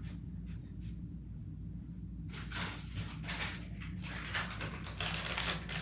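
Off-camera handling noise as a slime container is put away: a quiet stretch, then from about two seconds in a rapid, irregular run of clicks, taps and rustling scrapes.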